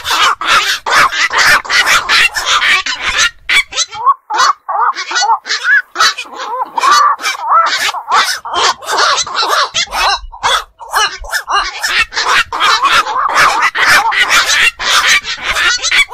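Black-crowned night herons calling: a dense, loud run of short, harsh calls, several a second and overlapping, with brief thinner moments about four and ten seconds in.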